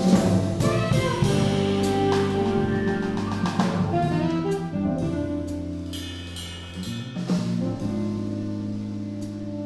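Small jazz combo playing live: alto saxophone leading over grand piano, electric bass and a drum kit with cymbals.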